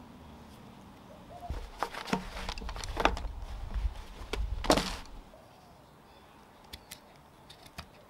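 Camera handling noise as the camera is picked up and set down: a low rumble with several knocks and thuds over a couple of seconds, then a few faint clicks.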